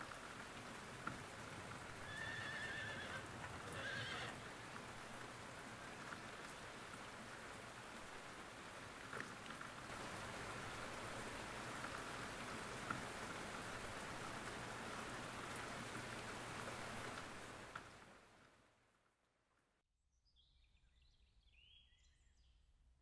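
Steady rain falling, with a horse neighing about two to four seconds in. The rain fades out near the end, leaving faint bird chirps.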